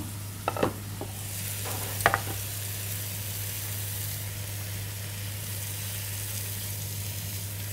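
Chicken breast sizzling as it fries in a pan, a steady hiss, with a few sharp clicks of metal tongs against the pan about half a second in and again about two seconds in.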